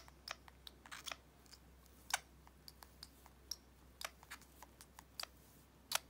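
Irregular small clicks and taps, one sharper about two seconds in, as a baby lovebird nibbles and bites at fingers and long fingernails.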